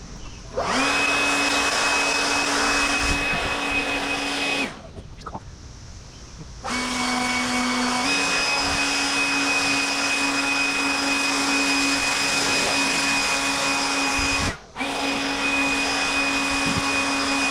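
Small electric pump of a bucket sprayer running with a steady hum and the hiss of sealer spraying. It cuts out for about two seconds a few seconds in, restarts a little lower in pitch before stepping back up, and stops for a moment again near the end.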